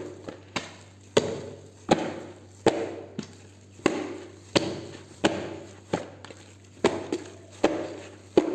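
Soft, sticky brioche dough being slapped and folded by hand to knock the air out of it after a rise, a wet smack about every three-quarters of a second.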